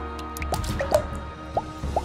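Raindrops falling into a shallow pool of water, each drop a short plink rising in pitch, about six of them at uneven times. Under them run background music and sustained steady tones.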